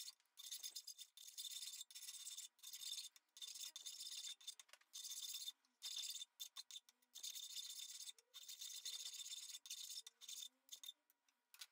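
Hand file rasping across the steel lead screw of a forged auger bit in repeated strokes, about one a second with short pauses between, rounding the square-section tip into a cone.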